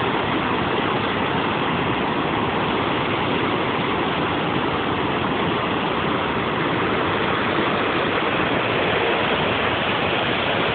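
Steady rushing of Murchison Falls, the Nile pouring through its narrowest gap, an even, unbroken roar of water.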